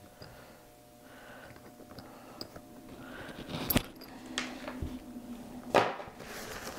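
Handling noise as rubber bands are worked off a canvas insulated bottle sleeve: soft rustling and rubbing, with two sharp clicks, one a little past the middle and one near the end.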